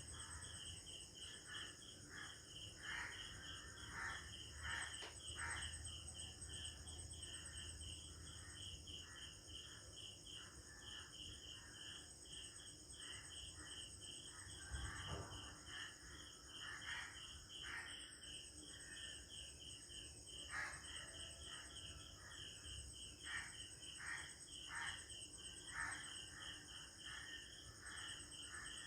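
Crickets chirping in a steady pulse, about three chirps a second, over a continuous high-pitched insect trill, with scattered short calls, likely birds, throughout. Faint early-morning rural ambience.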